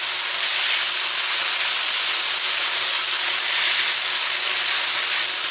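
Beef in brown sauce sizzling steadily in a hot wok, a constant frying hiss as it is stir-fried.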